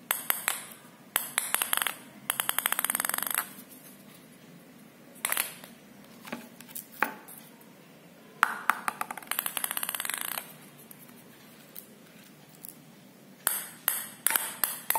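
Orange plastic table tennis balls dropped and bouncing on a hard floor, about six separate drops. Each is a run of sharp clicks that come quicker and quicker as the ball settles.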